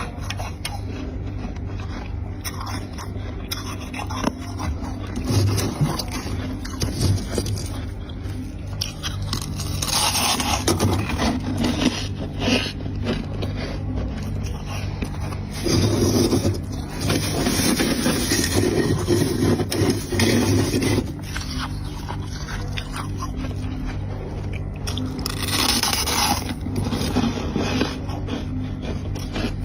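Chunks of freezer frost being bitten and chewed: flaky, squeaky crunching and scraping in irregular bouts, loudest about ten seconds in and again from about sixteen to twenty-one seconds.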